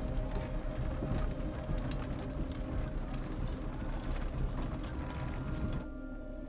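Horse-drawn carriage rolling over paving: wheels rattling and clattering with hoof knocks, over a low steady drone. The clatter drops off suddenly near the end.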